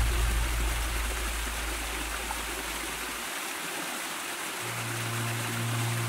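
Mountain stream spilling over rocks in a small cascade: a steady rush of water. Background music fades out in the first few seconds, and a low sustained note comes back in near the end.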